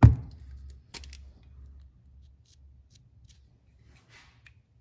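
A sharp click, then a second click about a second in, followed by faint scratchy strokes as short marks are made on the cylinder head beside the exhaust valve seat, flagging where the valve seat shows no contact.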